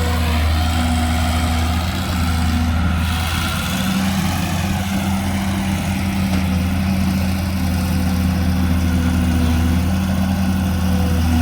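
Sumitomo LS260 excavator's diesel engine running steadily as the machine works, a low drone that rises and dips a little in pitch.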